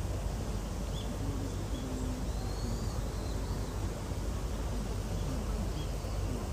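Outdoor zoo ambience: a steady low rumble with a faint murmur of distant voices, and a few brief high bird chirps.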